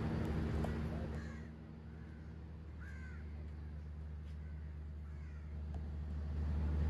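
A crow cawing, single arching calls about two seconds apart, over a steady low mechanical hum.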